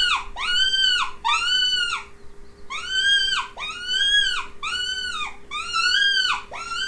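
Mouse distress squeaking used as a predator lure: a run of high squeaks, each rising and then falling, about one a second, with a short pause about two seconds in.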